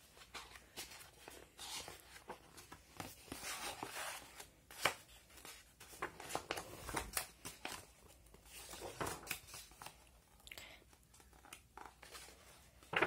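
Pages of a paperback picture book being opened and turned by hand: soft, irregular paper rustles and crinkles, with one sharper flick about five seconds in.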